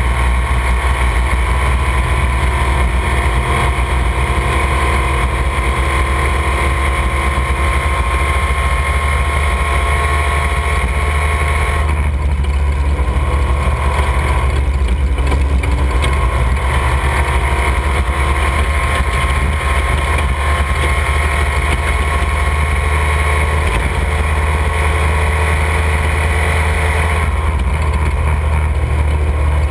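Off-road race vehicle engine running steadily under a heavy low rumble, its tone shifting about twelve seconds in and again near the end.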